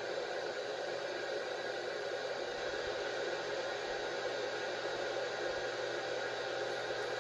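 Steady hiss of an FM radio receiver with its squelch open, listening on the ISS APRS packet frequency while the station's signal is still too weak to decode.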